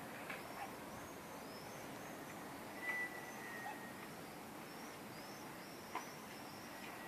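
Faint outdoor birdsong: short high chirps repeated throughout over a steady background hiss, with one longer, thin held whistle about three seconds in and a couple of brief clicks.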